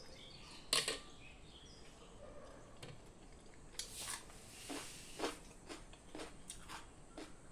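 Irregular sharp clicks and knocks of objects being handled, typical of kitchen work: a loud one about a second in, then a run of quicker, lighter ones from about four seconds on.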